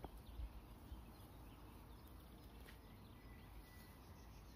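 Near silence: faint outdoor ambience with a low wind rumble and faint, scattered bird chirps.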